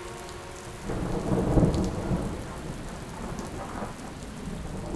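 Heavy rain falling steadily, with a rumble of thunder that swells about a second in and dies away after another second or so.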